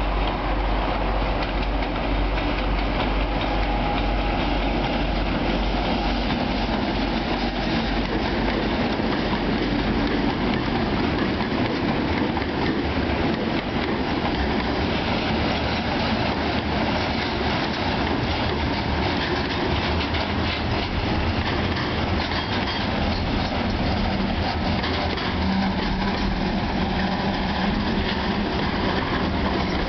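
Freight train led by three DC-class diesel-electric locomotives and hauling container and tank wagons, passing close by. The locomotives' diesel engines rumble for the first few seconds, then the wagons' steel wheels roll past steadily on the rails.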